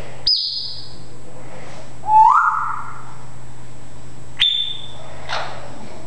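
Timneh African grey parrot whistling three separate clear notes: a high held whistle, then a lower one that rises and is the loudest, then another high held whistle.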